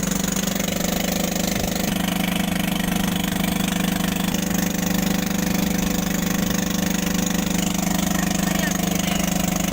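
Engine of a small river ferry boat running steadily, a constant low drone with a fast even pulse.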